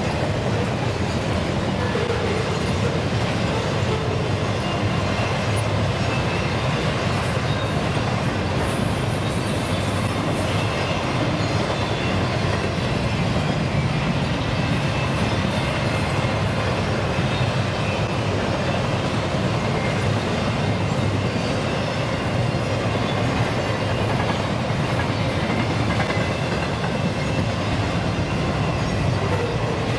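Double-stack intermodal well cars rolling past, their steel wheels on the rails making a steady, unbroken noise.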